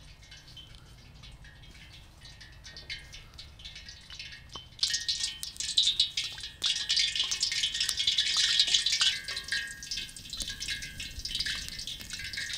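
Hot oil sizzling and crackling, likely samosas deep-frying. A light crackle at first, then a much louder, denser sizzle of many small pops starts about five seconds in and cuts off suddenly at the end.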